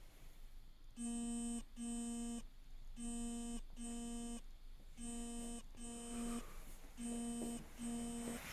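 Electronic beeper sounding in pairs of beeps, each about half a second long, with a new pair about every two seconds, like an appliance or alarm warning signal.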